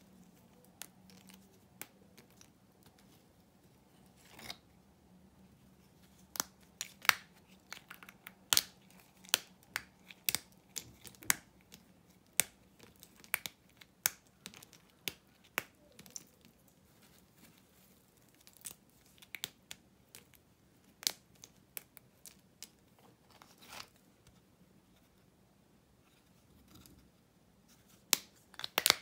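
Old Svoboda factory bar soap being snapped and broken into pieces by hand: crisp, sharp cracks at irregular intervals, a few in quick succession, with a quieter stretch near the end before a couple more snaps.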